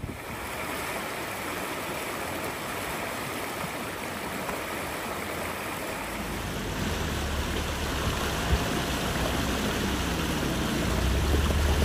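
Steady rushing noise like flowing water, with a low rumble that builds over the second half and is loudest near the end.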